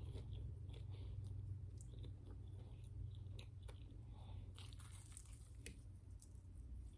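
Close-miked chewing of a grilled cheese and turkey sandwich: faint, scattered crunchy bites and chews over a low steady hum.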